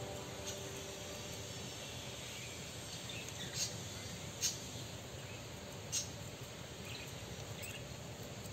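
Outdoor garden ambience: a steady background hiss with three short, sharp high clicks or chirps in the middle, a second or so apart.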